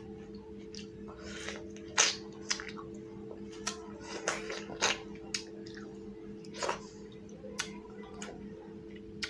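Close-up eating sounds of rice and fish curry eaten by hand: wet chewing and irregular sharp smacks, the loudest about two seconds in, over a steady hum.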